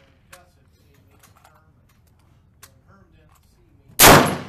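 A single AR-15 rifle shot (.223/5.56) about four seconds in, sharp and loud with a short decaying echo, after a few faint clicks of handling the rifle.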